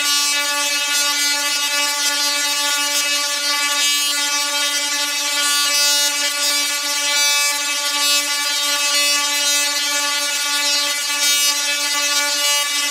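Large dual-resonant solid-state Tesla coil (DRSSTC) firing continuously: its sparks buzz at one steady pitch, with crackling running through.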